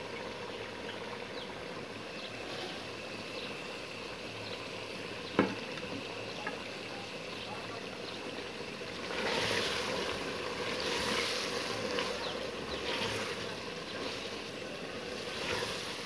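Kachnar buds frying in ghee and yogurt masala in a metal pot, a steady sizzle with faint crackling: the bhuna (frying-down) stage. A sharp click about five seconds in; from about nine seconds a wooden spoon stirs and scrapes through the buds, the sizzle surging with each stroke about once a second.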